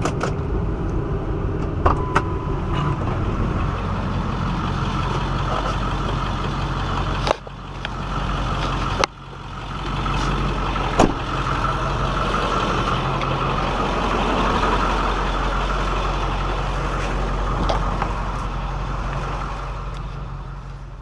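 Engine and road noise inside a 2001 Ford Excursion's cabin while driving: a steady low drone with tyre hiss. The sound breaks off suddenly twice, about seven and nine seconds in, and fades near the end.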